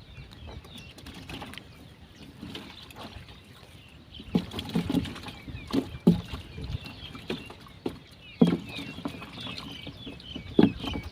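Irregular splashes and dull knocks in water, a few seconds apart and growing more frequent in the second half, over steady high-pitched bird chirping.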